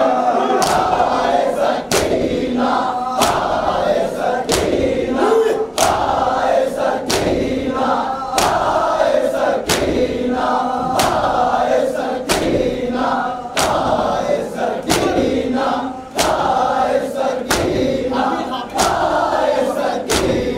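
A crowd of men chanting a noha together while beating their chests in unison (matam), the sharp slaps landing in a steady rhythm about one and a half times a second.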